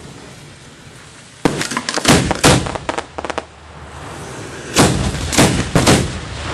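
Fireworks going off from mortar racks at close range: a series of loud bangs in two groups, three about a second and a half in and three more about five seconds in, with a quick run of crackles between them.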